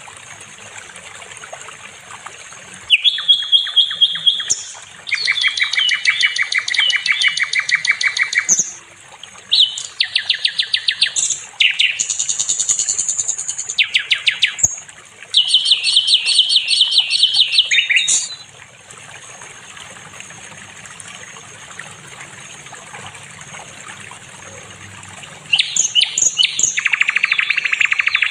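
Sikatan londo flycatcher singing: loud phrases of rapid, evenly repeated high notes, each a few seconds long with short pauses between, and a longer pause in the second half before the song resumes near the end. A steady hiss of running water lies underneath.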